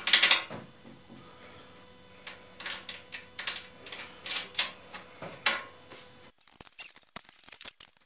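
Metal clinks and short scrapes of a steel engine mounting plate being shifted by hand on a chipper shredder housing to line up its bolt holes, with a sharp knock at the start and quick clicks near the end.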